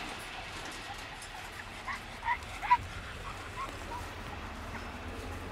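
A dog giving a quick run of short, high yips and whimpers, loudest about halfway through.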